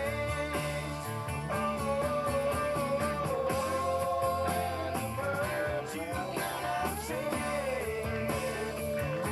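Music: a rock song with guitar, bass and drums, its held melody line sliding between notes.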